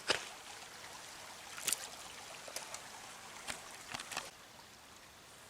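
Small mountain stream running steadily, with a few sharp clicks and knocks scattered through it.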